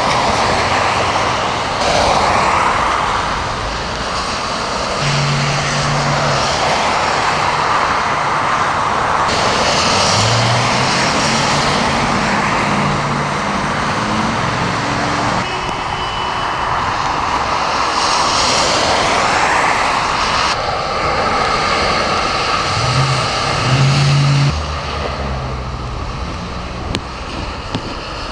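Cars and SUVs driving through deep floodwater on a road, their tyres throwing up spray in a loud rushing splash that swells as each one passes, with engines humming underneath.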